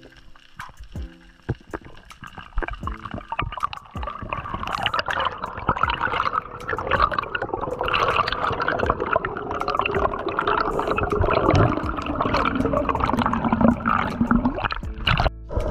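Water rushing and bubbling over an underwater action camera as a diver swims, building up about four seconds in and staying loud and churning, the way a camera sounds when the diver moves it quickly toward the surface.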